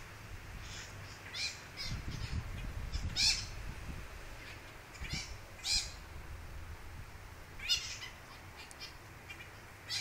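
Wild parrots squawking in a tree: about ten short calls scattered through, the loudest about three seconds in, again near six seconds and near eight seconds.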